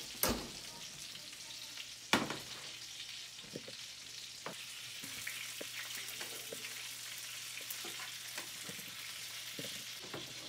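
Filet mignon steaks sizzling and crackling in butter in a hot cast iron pan just out of a 450°F oven. Two sharp knocks stand out in the first couple of seconds.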